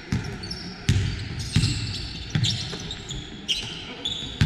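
A basketball being dribbled on a gym floor, bouncing about every three-quarters of a second, with short high squeaks of sneakers on the court between bounces.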